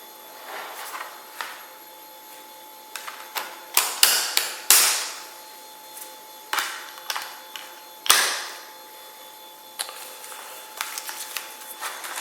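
Handling of a Blu-ray steelbook case: a series of clicks and knocks, the loudest a cluster about four seconds in and another about eight seconds in.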